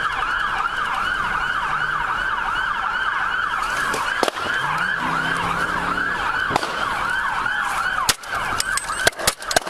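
Police car siren in a fast yelp, its pitch rising and falling several times a second without a break. A few sharp cracks sound near the end.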